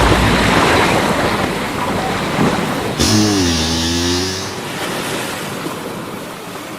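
Crash aftermath sound effects: a noisy rumble dying down, then about three seconds in a sudden hiss with a low moaning tone that dips in pitch and holds for about a second and a half before the sound fades away.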